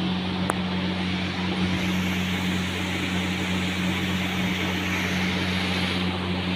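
Steady hum of an electric fan running, a low motor drone under an even rush of air.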